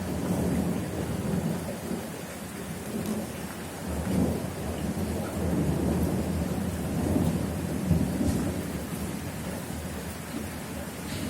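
Thunder rumbling continuously over steady rain, swelling about four seconds in and again later.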